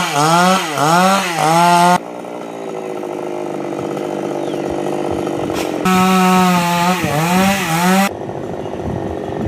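Chainsaw running at full throttle, its pitch dipping and recovering as the chain bites into the coconut palm trunk. Twice it switches abruptly to quieter, lower-pitched running, then back to the high-revving cut.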